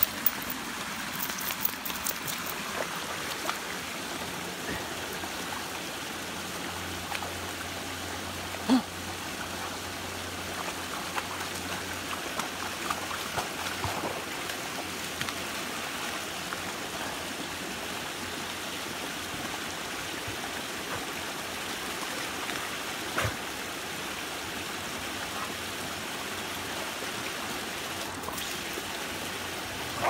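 Small forest stream pouring over a low rocky waterfall: a steady rush and splash of water. A couple of short sharp knocks stand out, one about nine seconds in and another past twenty seconds.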